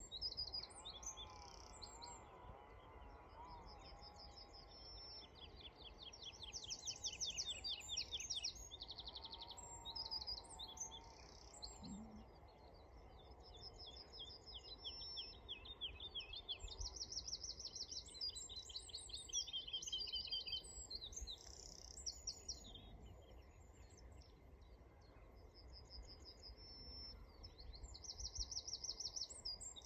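Woodlark singing from a perch: a run of phrases, each a fast series of repeated high notes, some phrases falling in pitch, with short pauses between them.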